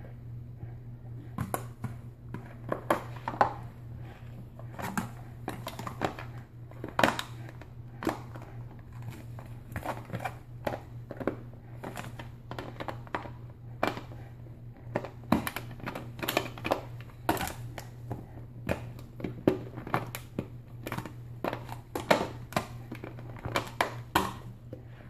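A dog chewing on an empty plastic Coke bottle: the plastic crackles and crinkles in quick, irregular crunches as the dog bites and works at the cap. A steady low hum runs underneath.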